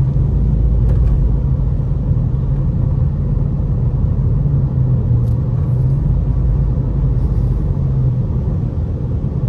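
A car running, heard from inside the cabin: a steady low rumble with an engine hum.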